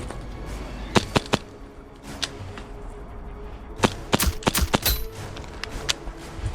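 Airsoft gas blowback pistol, a Detonics .45, firing: three quick sharp pops about a second in, one more a second later, then a rapid string of several shots near the end.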